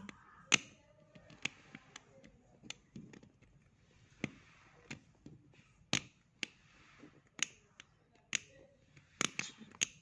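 Number wheels of a TSA combination lock on a suitcase clicking as they are thumbed round to set a new code after the reset button has been pressed. The clicks come singly, about a second apart, with a quick run of them near the end.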